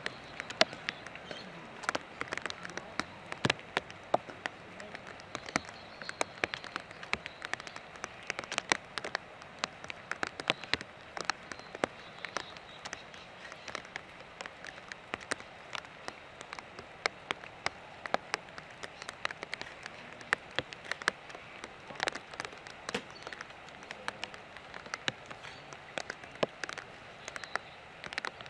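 Rain falling, with many irregular sharp drop taps close to the microphone over a steady hiss.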